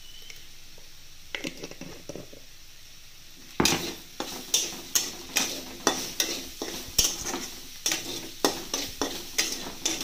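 Metal spatula stirring and tossing chopped amaranth greens in a metal kadhai, scraping and knocking against the pan about two to three times a second over the sizzle of frying. The stirring starts about three and a half seconds in, after a few softer sounds.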